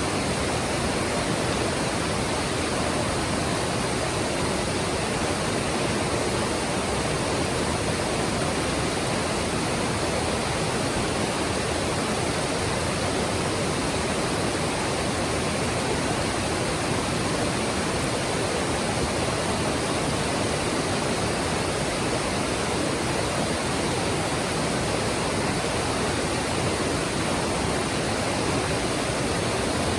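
Mountain stream rushing steadily over rocks, a dense, even hiss of water with no changes.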